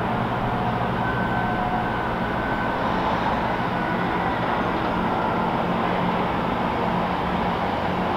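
GBRf Class 66 diesel-electric freight locomotive with its EMD two-stroke V12 engine running as it approaches hauling loaded wagons. It makes a steady low hum.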